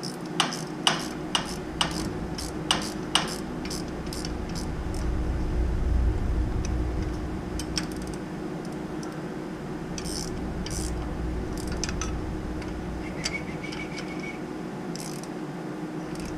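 Sharp metallic clicks and clinks of a wrench and pliers on the flange bolts of a Bell & Gossett circulator pump. Six loud ones come in the first few seconds, then fainter scattered ones, over a steady low hum.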